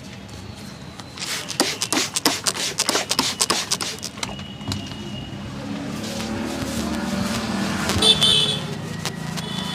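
Quick, irregular hand slaps of a percussive massage for about three seconds. Then street traffic: an engine hum growing louder, and a vehicle horn sounding near the end.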